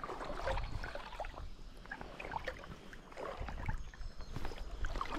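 Shallow river water sloshing and splashing close by in irregular bursts, over a low rumble.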